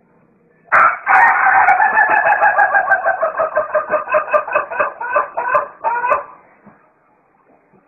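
A white rooster crowing one very long crow of about five seconds. It is steady at first, then wavers in quick pulses, about four a second, before it cuts off.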